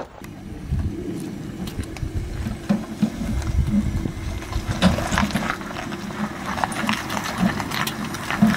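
Jeep Wrangler crawling slowly over bare rock while towing an off-road camper trailer: a low steady engine hum under irregular clunks and rattles, which come more often in the second half.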